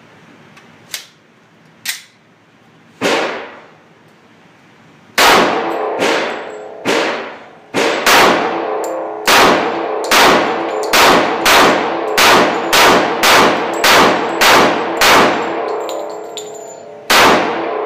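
Glock 21 .45 ACP pistol fired in a rapid string of roughly fifteen shots, about two a second, with one more shot near the end. Each shot rings and echoes off the walls of the indoor range. Before the string there are a couple of faint clicks and one softer shot.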